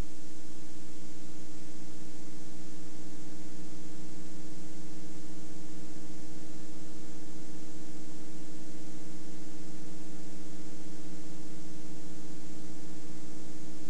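Steady electrical hum and hiss from VCR playback with no recorded signal: a buzz of several steady tones under a high hiss.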